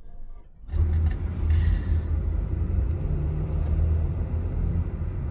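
Car road noise: a loud, steady low rumble that cuts in suddenly under a second in, with a brief tyre hiss about a second later as an oncoming car passes.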